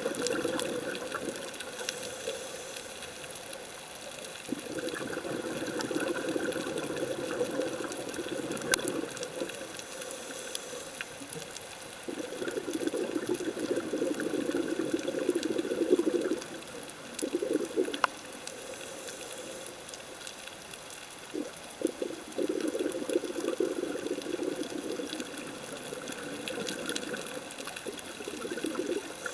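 Underwater ambience of a scuba diver's exhaled bubbles rushing and gurgling out of a regulator, coming in bursts of a few seconds with quieter spells between breaths.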